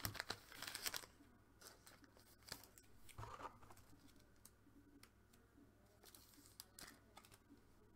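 Faint handling of trading cards and their packaging. A quick run of small clicks and rustles comes in the first second, then scattered light taps and a brief crinkle.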